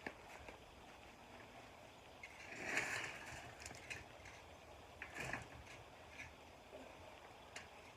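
Faint rustling and scuffing of soil and potato plants being dug through by hand, with a louder scuff about three seconds in and a shorter one about five seconds in.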